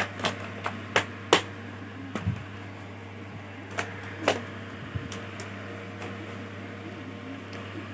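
Plastic retaining clips of a Lenovo IdeaPad 320's bottom case clicking loose as a pry tool is worked along the seam. About a dozen sharp, irregular clicks, several close together in the first second and a half, over a steady low hum.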